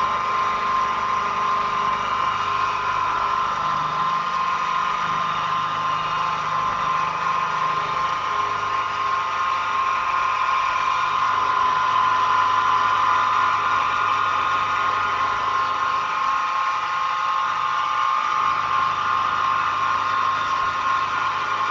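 Milling machine spindle running steadily with a 1/8-inch two-flute end mill cutting a metal part, a constant high whine over a lower motor hum.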